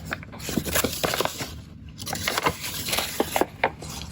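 Paper rustling and crackling, with scattered small clicks and scrapes, as a paper instruction manual and its packaging are handled.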